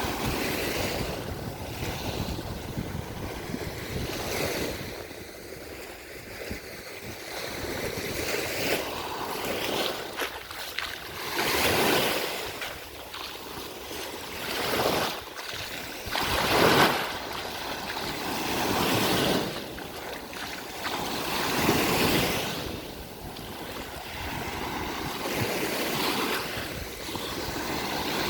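Sea waves washing up on the beach, breaking in repeated surges every few seconds, with wind rumbling on the microphone.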